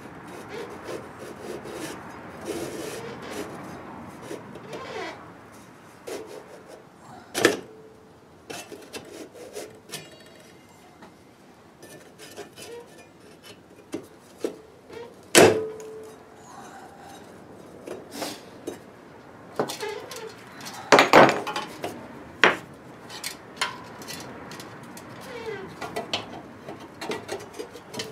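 Metal parts of a kerosene heater being handled and fitted back together: scattered clinks, scrapes and knocks. About halfway through, a sharp metal clank rings briefly, and a cluster of knocks follows a few seconds later.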